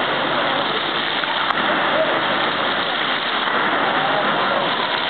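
Fountain water jets splashing steadily back into a shallow pool, a constant even rush of falling water.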